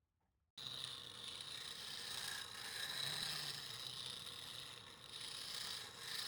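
Wood being worked on a wood lathe: a steady, hissing scrape of the spinning wood against a tool, starting abruptly about half a second in.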